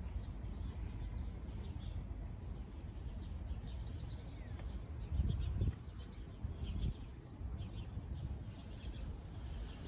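Small birds chirping in short, scattered calls over a low, steady city rumble. The rumble swells briefly about five seconds in.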